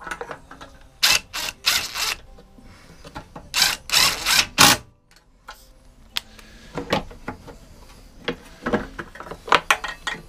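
Ratchet wrench clicking in short runs of strokes as small 8 mm bolts are done up, with two bursts of ratcheting early on. Scattered lighter clicks and knocks of the socket and plastic housing follow.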